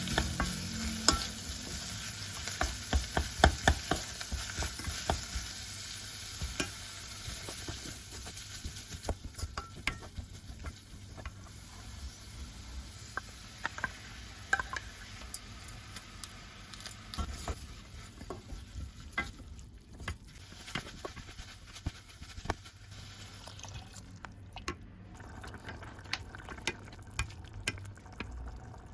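Kitchen stirring: a utensil repeatedly clicks and scrapes against a bowl over a steady hiss, which is strongest in the first several seconds.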